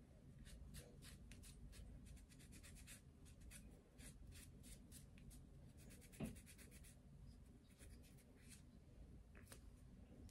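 Faint scratchy rubbing of a cotton pad soaked in nail polish remover scrubbed against a glitter-polished fingernail, in quick short strokes. A soft knock about six seconds in.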